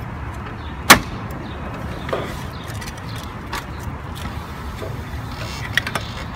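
Plastic control board housing of a wine cooler being unclipped and pulled out of the cabinet: one sharp plastic snap about a second in, then a few lighter clicks and knocks as the housing comes free.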